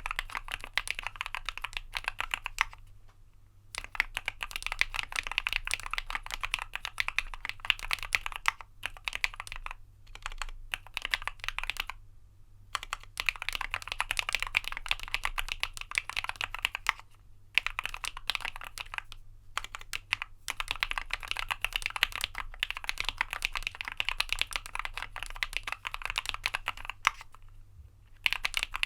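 Fast, continuous typing on a Keychron Q1 Knob mechanical keyboard with lubed Turquoise Tealios linear switches and dolch PBT keycaps. The keystrokes run in long bursts, broken by a few short pauses.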